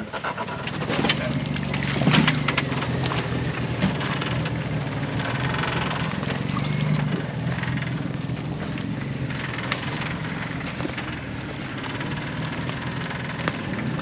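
Off-road vehicle engine running at low speed while crawling a rocky trail, with scattered cracks and crunches from the tyres going over rock and dirt.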